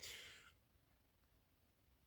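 Near silence, with a short, faint breath-like hiss in the first half second.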